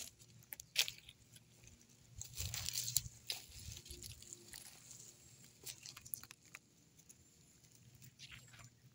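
Footsteps crunching and rustling through dry leaf litter and twigs on a forest floor, irregular crackles with a sharp snap about a second in and a denser stretch of crunching around the third second.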